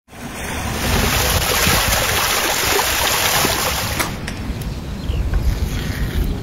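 Spring water pouring from a stone spout and splashing, a steady full rush that cuts off about four seconds in. After that comes a quieter low rumble of wind on the microphone.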